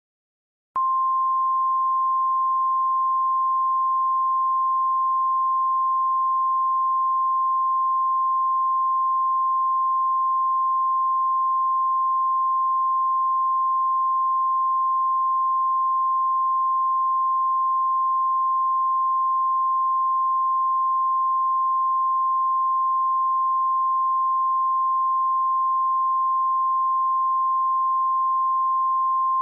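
Emergency Alert System attention tone for a tornado warning: a single steady, high-pitched tone that starts abruptly about a second in and holds unbroken at one pitch and one level.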